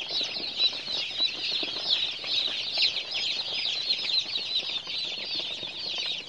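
A flock of newly arrived broiler chicks peeping without pause, many short, high chirps overlapping, each falling in pitch.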